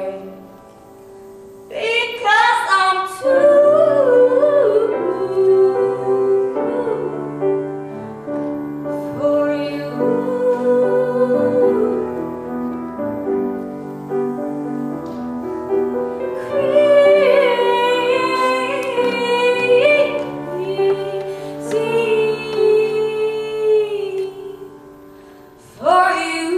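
A woman singing a slow ballad to grand piano accompaniment, with a slight waver on her held notes. The music drops softly just after the start and again shortly before the end.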